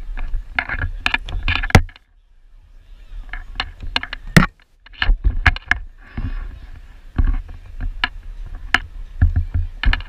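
Kick scooter's small wheels rolling over a wooden plank deck: a low rumble broken by irregular clacks and knocks as they cross the board joints, dropping away briefly about two seconds in.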